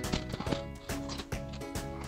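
Background music with a steady beat: held notes over light, evenly spaced percussion.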